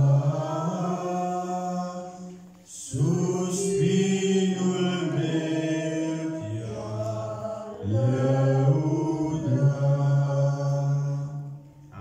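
Man singing a hymn solo into a microphone in long held notes, in phrases with short breaks; the last phrase dies away near the end.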